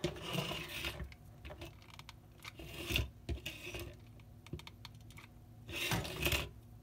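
A popsicle-stick frame with a wooden mousetrap glued on is handled, turned around and slid across a tabletop, making scraping and clicking noises. The scrapes come near the start, about three seconds in and again around six seconds in.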